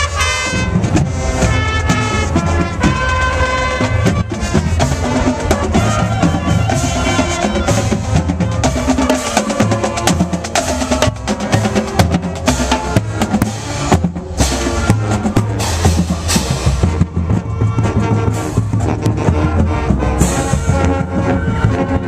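Marching band playing as it passes: trumpets and other brass over the drumline in the first few seconds, then mostly the drumline's snare drums and Pearl bass drums beating out a steady rhythm.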